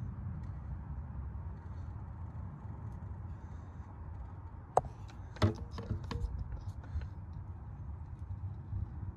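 Handling noise while gear oil is pushed from a syringe through a tube into the filler hole of a Land Rover Freelander 2's transfer box (PTU): a steady low rumble, with a cluster of clicks and a short creak about five seconds in.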